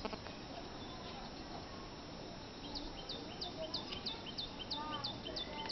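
A small bird calling: a rapid, even run of short, high, falling chirps, about four a second, starting about halfway through, over steady outdoor background noise.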